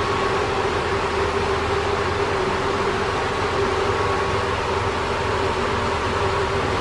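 Ship's engine-room machinery running steadily, electric-motor pump units among it: a constant noise with a steady hum running through it.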